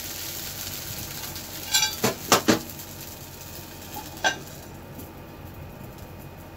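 Metal lid clanking onto an iron appam pan as it is put on: four quick clanks about two seconds in and one more ringing clank a little after four seconds. Under them, the soft sizzle of appam batter cooking in the pan, which dies down after the last clank.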